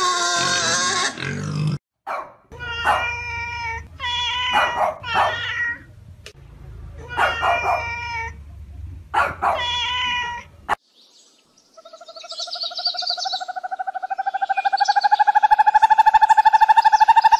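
Pigs squealing for the first couple of seconds. Then a cat meows in a string of short calls, about eight of them. After a short pause comes one long trilling bird call, about ten pulses a second, rising slightly in pitch.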